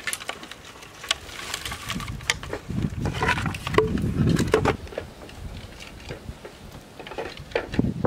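Hands working bamboo poles and thin plant-fibre bindings: irregular rustling, crackling and light clicks and knocks, busiest in the middle.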